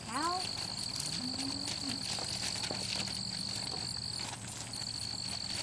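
Insects trilling steadily on one high pitch, with a short break near the end.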